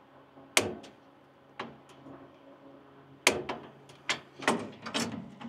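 Sharp metallic clicks and knocks, about seven in a row and loudest about half a second in and just after three seconds, as a bleed valve sense line tube and its fitting are handled and worked into place by hand.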